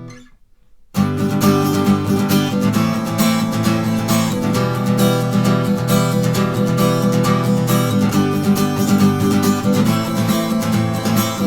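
Acoustic guitar strummed with the gallop strum (three strokes, down-up-down, the last one accented), running through the chorus chords G, Am and Em. The strumming starts about a second in and keeps an even, steady rhythm.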